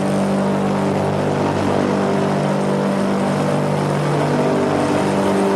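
Steady, even drone of aircraft engines and propellers: a low hum with several held tones over a rushing noise.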